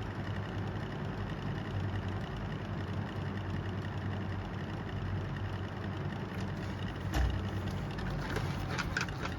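Lasko box fan running steadily: an even rush of air over a constant low motor hum. A single knock comes about seven seconds in, followed by a few light clicks near the end.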